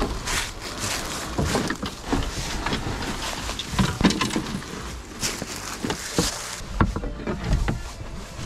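Wooden-framed Nautiraid folding boat being dragged over dry leaf litter: rustling and scraping, with irregular knocks and clatters from its frame and the loose oars inside.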